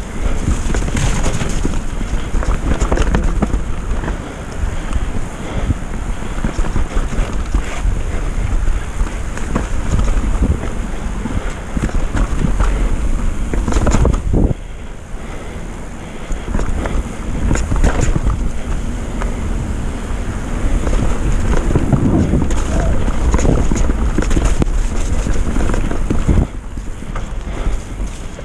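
Wind buffeting the microphone on a mountain bike riding fast down a wet, rooty downhill trail, with the bike and tyres rattling over roots and rocks and a few sharper knocks from hard hits. The noise dies down near the end.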